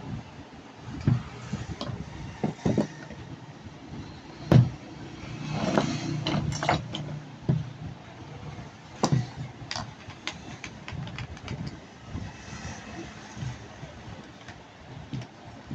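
Scattered knocks and clicks of hands handling a power drill and its parts on a workbench, over a steady low rumble.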